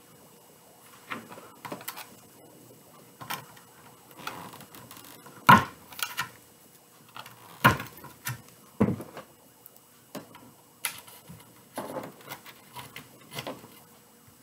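Burlap mesh rustling and scraping as it is scrunched and pushed into a wreath by hand, with irregular knocks and clicks on the table. The sharpest knocks come about five and a half and seven and a half seconds in.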